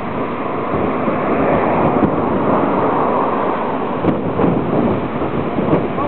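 Strong wind buffeting the microphone: a loud, even rushing that swells for a couple of seconds in the middle.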